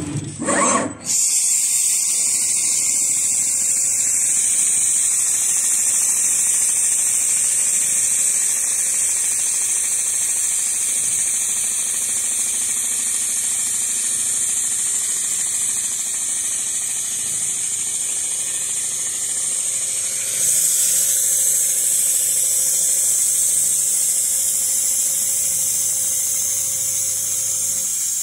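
Richpeace automatic non-stop sewing machine running continuously, its needle head stitching quilting lines through a padded furniture panel: a steady, high-pitched mechanical whir that gets louder about two-thirds of the way through.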